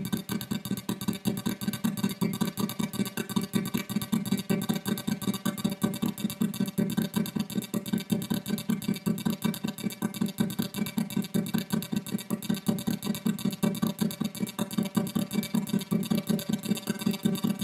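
Strobe-light flicker picked up by a solar cell and played through distortion and DD-7 delay pedals into a small speaker: a steady, rapid pulsing buzz over a low hum.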